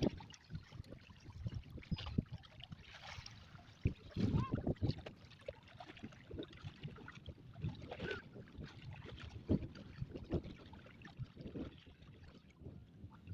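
Irregular knocks and thumps on a small fishing boat, with faint water sounds underneath, as the fishermen work the hook lines.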